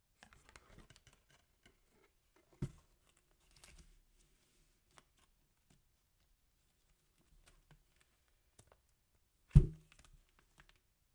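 Hands handling packaging: soft crinkles and rustles of a paper card and plastic wrap, with small ticks. A dull thump comes about two and a half seconds in, and a much louder thump near the end.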